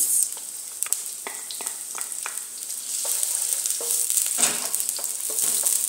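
Chopped red onions sizzling in hot oil in a wok, stirred with a wooden spatula that knocks and scrapes against the pan. The sizzle grows louder about three seconds in.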